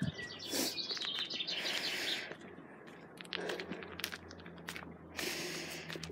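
Footsteps crunching and scuffing on a dry forest path of pine needles and leaf litter, with small birds chirping. Two louder rustling scuffs come about two seconds in and again near the end.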